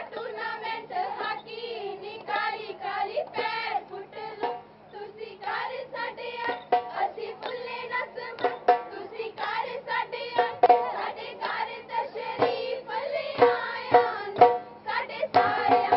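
Girls and women singing Punjabi boliyan (giddha folk couplets) with drum beats keeping the rhythm; the drumming grows louder near the end.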